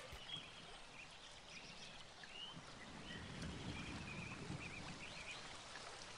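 Faint outdoor ambience: a steady hiss with a few short, high bird chirps scattered through it.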